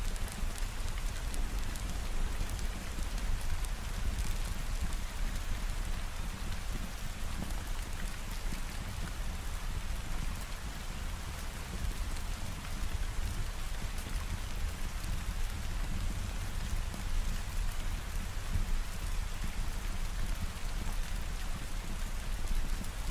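Steady heavy rain falling on a surface, a continuous hiss of drops over a low rumble.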